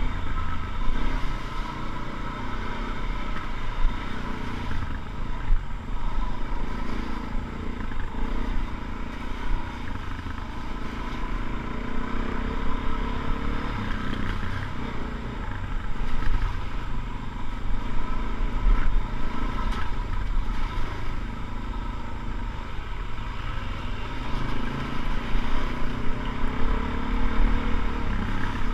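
Motorcycle engine running steadily while riding, with a heavy, uneven low rumble underneath.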